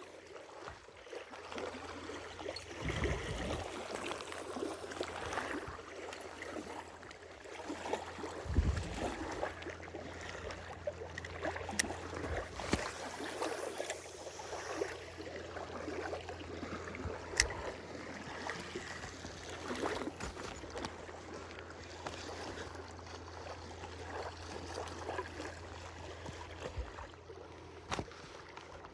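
Water lapping and gurgling against a small boat's hull, with a few sharp knocks and a low steady hum beneath from about a third of the way in.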